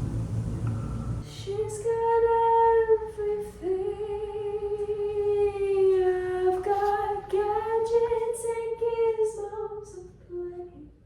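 A woman's voice singing slow, long-held notes with little or no accompaniment. A low rumble stops about a second in, just before the singing starts.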